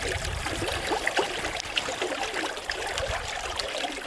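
Running river water, a steady gurgling trickle dotted with small splashes, over a low rumble.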